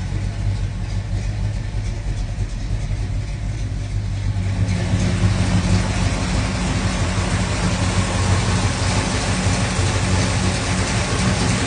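1966 Chevrolet Chevelle engine idling steadily. About five seconds in, the sound becomes louder and brighter as it is heard close at the open engine bay.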